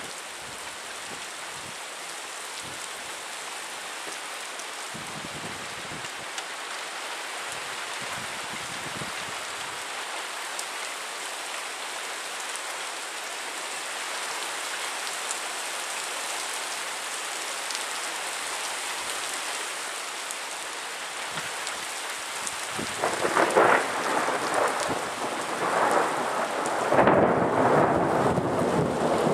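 Thunderstorm: steady rain hiss, then, about 23 seconds in, a loud roll of thunder that swells several times and keeps rumbling.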